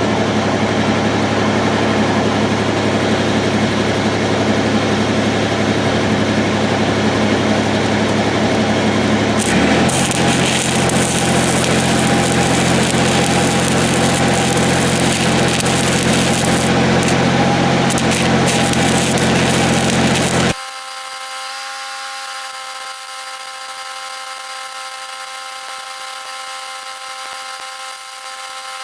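Arc welding: a steady, loud crackling hiss of the arc over the welding machine's hum, stopping abruptly about twenty seconds in. After that, a quieter steady hum.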